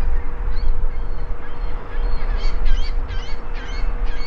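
Birds calling in a quick run of short, pitched calls, about two a second, starting about halfway through, over a low rumble.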